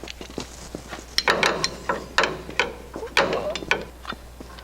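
Wrench work on the new strut rod's front nut: irregular spells of sharp metallic clicking and rattling, like a ratchet being worked.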